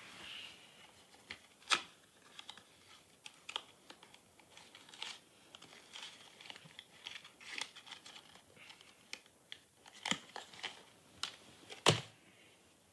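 Quiet handling noise: small clicks and rustles of bedding and clothes shifting and a phone being handled on a bed, with a sharper knock about two seconds in and another near the end.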